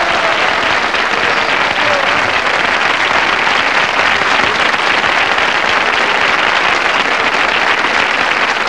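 A studio audience applauding, a steady, dense clapping that lasts throughout.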